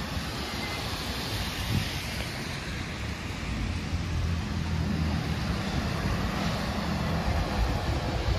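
Street traffic on wet, slushy pavement: a steady hiss of tyres on the wet road, with wind on the microphone. A low vehicle engine rumble builds from about halfway.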